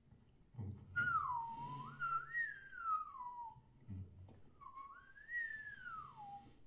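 A performer whistling two gliding phrases. Each wavers up and then falls away, the first about a second in and the second after a short break.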